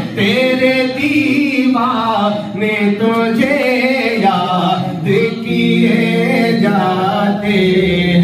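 Solo male voice singing devotional Urdu verse naat-style into a microphone, in long phrases with the pitch gliding between held notes.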